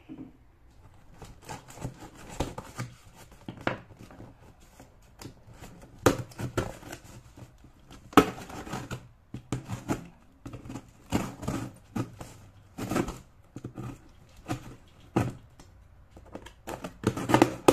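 Plastic mailing bag being cut and torn open with a knife and handled: irregular crinkling, tearing and rustling of plastic with sharp clicks, louder bursts about six, eight and seventeen seconds in.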